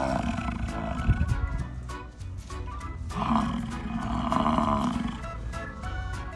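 An animal giving long, drawn-out pitched calls twice, over background music.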